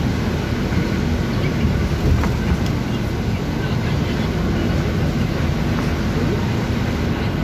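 Trolleybus in motion, heard from inside the passenger cabin: a steady low rumble of the road and running gear, with a couple of light knocks about two seconds in.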